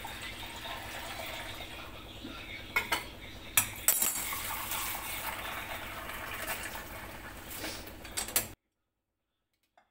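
Stainless-steel pots and pans clinking and clattering as they are handled at the stove, with a few sharp metal clinks about three to four seconds in, over a steady low background noise. The sound cuts off abruptly shortly before the end.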